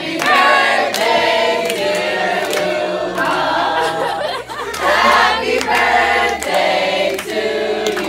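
A group of people singing a song together.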